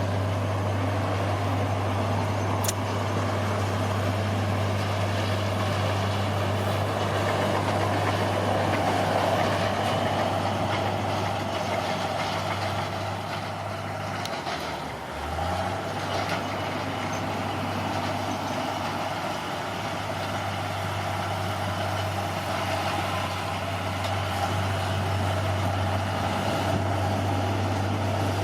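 Heavy diesel engine of an earthmoving machine running steadily, with a brief drop in engine pitch and level about halfway through before it picks back up.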